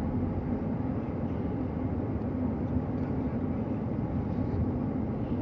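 Steady road and engine noise of a moving vehicle: a low, even rumble with a faint steady hum.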